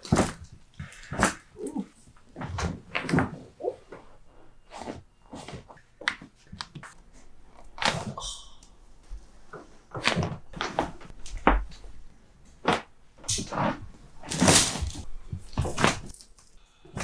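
Chiropractic back adjustments: a long run of sharp pops and thuds at irregular intervals, joints cracking and hands thrusting on the body.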